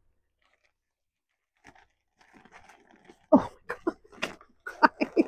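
Plastic packaging bags crinkling and rustling as they are handled and pulled open, starting about two seconds in and turning into a run of sharp crackles in the last two seconds.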